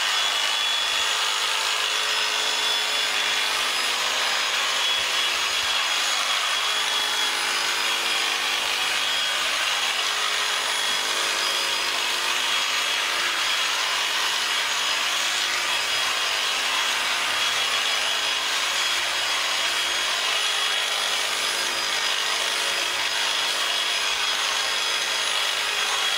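Electric sheep-shearing clippers running steadily and cutting through fleece, with a constant whine over the noise. The cutters are dulled from running into a metal ear tag, so the clippers are bogging down.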